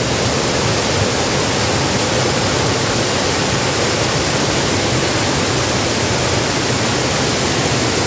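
Waterfall cascading over rocks: a steady, loud rush of white water.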